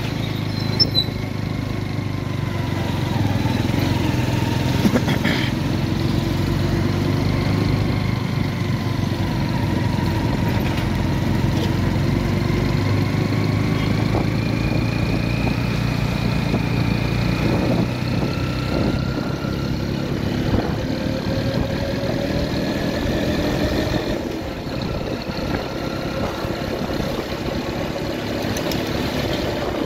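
Motorcycle engine running steadily while riding, over road and wind noise. Its pitch slowly rises and falls with the speed, and it eases off about three-quarters of the way through.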